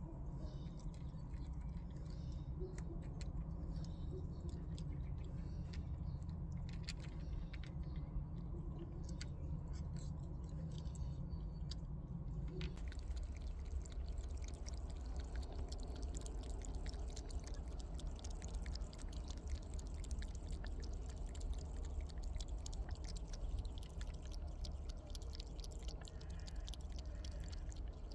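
A cat chewing food, with many small wet clicks and crunches over a steady low background rumble.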